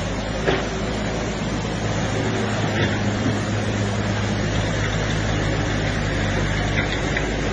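A tractor engine running steadily, its low hum constant, under the even rush of fast-flowing muddy floodwater.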